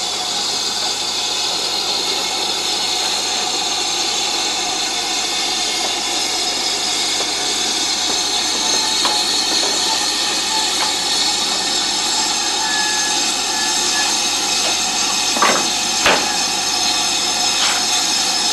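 Steam hissing steadily from the BR Standard Class 4MT 4-6-0 steam locomotive 75027 as it stands at the platform, with two short knocks near the end.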